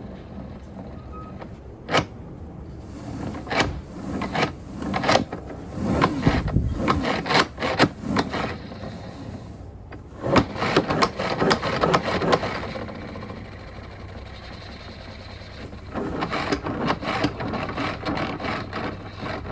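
Hard plastic parts of a spin-mop bucket's pedal, shaft and bearing mechanism clicking, knocking and scraping as they are handled and tried by hand, in irregular clusters with a quieter stretch about two-thirds of the way through.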